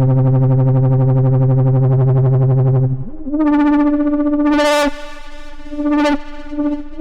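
Moog Subsequent 25 analog synthesizer playing a bright lead patch. A low note is held for about three seconds, then a higher note slides up into place and sustains, growing brighter before it stops. A short, bright note follows near the end.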